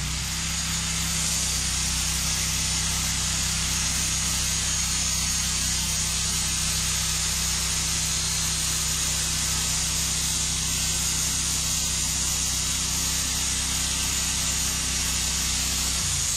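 Norwood LumberMate 2000 portable band sawmill running steadily: a low engine drone under a strong hiss from the band blade. It cuts off suddenly near the end.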